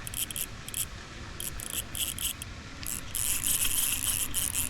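Fishing reel drag clicking in irregular spurts as a hooked catfish pulls line, then running longer and steadier near the end as the fish makes a run.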